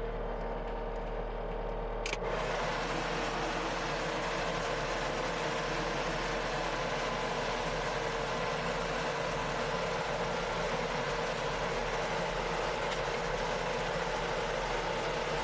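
Skid steer engine running steadily, heard from inside its cab; about two seconds in it gets suddenly louder and harsher, then holds steady.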